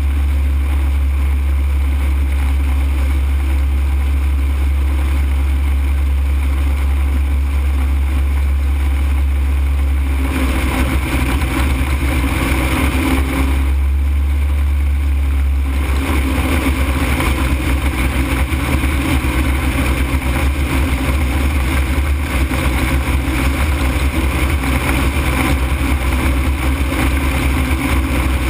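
Ultralight aircraft in flight: a loud, steady low drone. Its character changes about ten seconds in, turning rougher.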